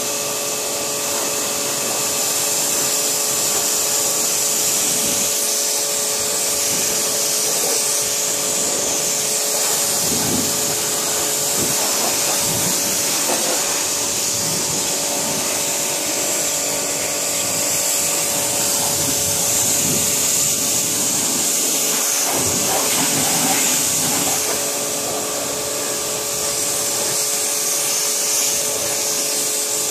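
Kärcher 140-bar electric pressure washer running, its motor and pump giving a steady whine under the hiss of the high-pressure water jet spraying against a car's bodywork.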